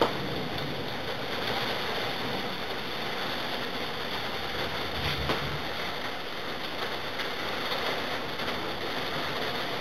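Steady rain and wind of a thunderstorm, an even rushing noise, with a faint click about five seconds in.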